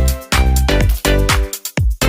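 Electronic dance music with a steady beat and heavy bass, with a brief break in the beat near the end.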